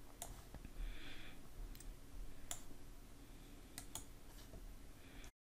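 Computer mouse clicking about five times, single sharp clicks spread a second or so apart, over faint room hiss. The sound cuts to dead silence near the end.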